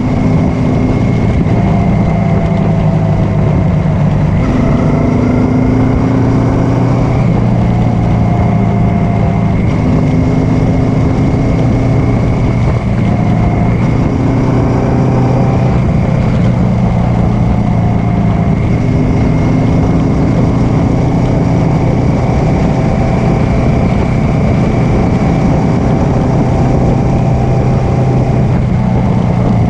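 Honda Africa Twin V-twin engine running at a steady road pace, its pitch shifting up and down in small steps every few seconds as the throttle changes, with wind rush over the microphone.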